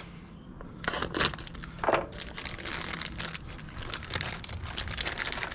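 Plastic vacuum-sealed sausage package being slit open with a knife and handled: irregular crinkling and crackling of the plastic, busier in the second half.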